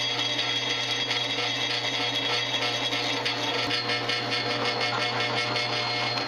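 Background music with guitar, steady throughout and stopping suddenly at the very end.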